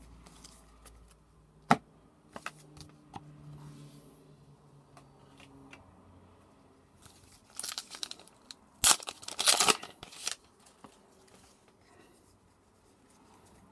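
Flesh and Blood Uprising foil booster pack being handled and torn open: a few light taps and crinkles, then a loud burst of wrapper crinkling and tearing about eight to ten seconds in.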